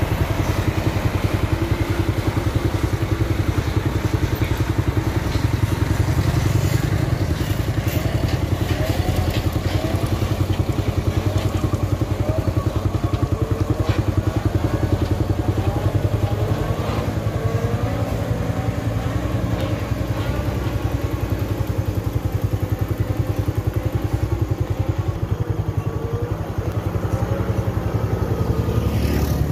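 Truck and motorcycle engines running steadily as heavy sugarcane trucks come down a steep road, with the engine pitch wavering a little through the middle.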